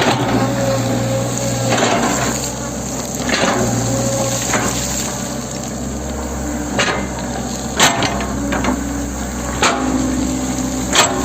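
Hitachi 110 M excavator running under load, with a hydraulic whine that rises and drops as the arm and bucket move. Sharp clanks and knocks come several times in the second half, the loudest near the end.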